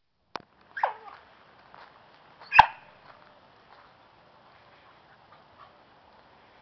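Dog vocalizing: a short yelp falling in pitch about a second in, then one loud, sharp bark about a second and a half later.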